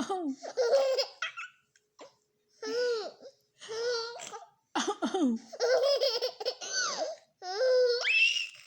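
Baby laughing in repeated bursts of high-pitched giggles with short pauses between them, ending in a sharply rising squeal.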